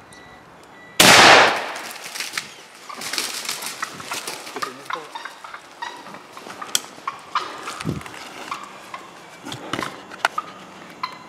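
A single shotgun blast about a second in, dying away over about half a second. It is followed by scattered rustling, crackling and snapping of dry leaf litter and twigs as people move through the woods.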